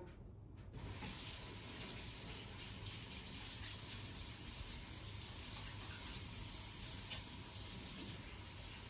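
A steady rush of running water that starts abruptly about a second in and keeps on evenly.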